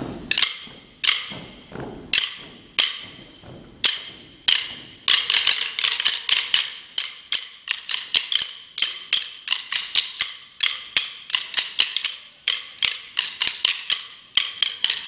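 A group of wooden drumsticks clicking in rhythm, with an echo after each click. The first few seconds hold spaced-out single clicks. From about five seconds in they become a dense, fast run of interlocking clicks.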